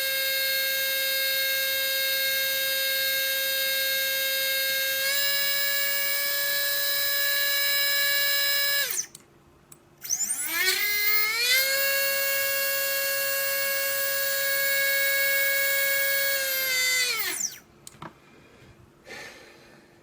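Small Readytosky 1804 brushless drone motor running at speed with a high, steady whine, stepping a little higher about five seconds in, cutting off near nine seconds, spinning up again a second or so later and winding down near the end. The owner says these motors have a bad bearing and vibrate badly.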